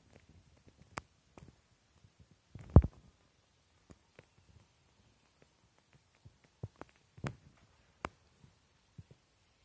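Close handling noise: sparse small clicks, rustles and knocks, with one loud low thump about three seconds in.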